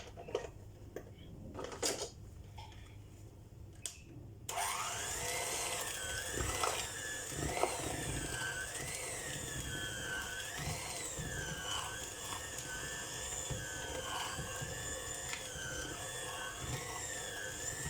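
A few knocks, then about four and a half seconds in an electric mixer starts and runs steadily, its whine wavering in pitch as the beaters work through thick muffin batter being thinned with milk.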